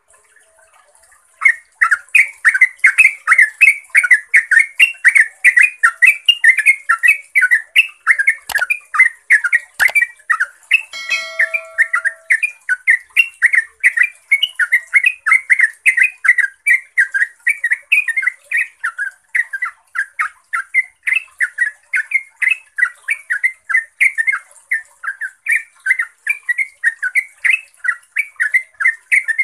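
Yellow-vented bulbul singing a long, unbroken run of rapid chattering notes, about four a second, starting about a second and a half in: the long rapid-fire song prized as a lure for other bulbuls.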